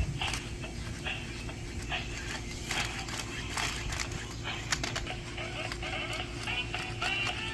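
Remote-control robot dog toy playing electronic animal sounds and chirping tones through its small speaker, with a run of sharp clicks.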